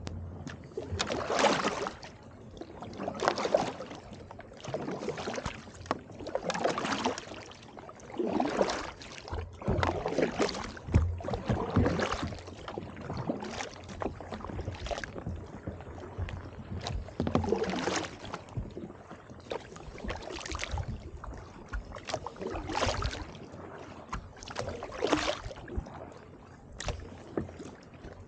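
Kayak paddle strokes through water strewn with brash ice: a splashing swish about every two seconds, with a few sharp knocks in between.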